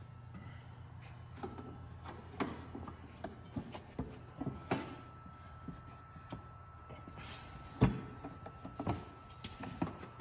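A powder-coated tubular snowmobile front bumper being slid onto the sled's front end: a string of scattered light knocks and clicks as the tube bumps against the frame, with one sharper knock near the end, over a steady low hum.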